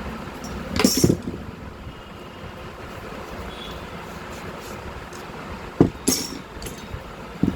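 A few sharp knocks and clinks, as of metal tools and machine parts being handled and set down: two close together about a second in, two more around six seconds in, and one near the end, over a steady low background noise.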